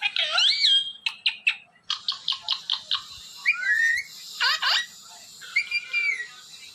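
Ringneck parrot whistling and chattering: a run of quick, sharp chirps mixed with rising and falling whistles.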